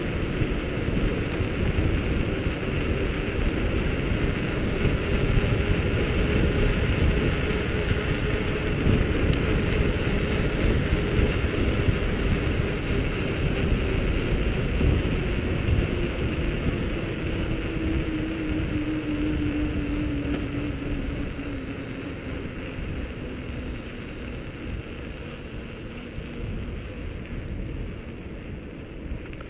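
Wind buffeting the microphone of a mountain bike's camera while riding on asphalt, with the hum of the tyres on the road that slowly drops in pitch as the bike slows. All of it grows quieter over the last third.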